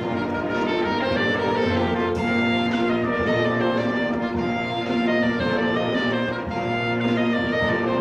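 Concert band playing, woodwinds and brass holding full chords that change every second or so.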